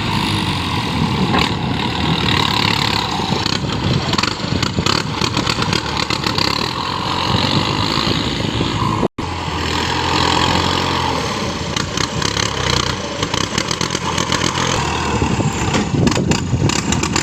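An engine running steadily, broken by a momentary dropout about nine seconds in.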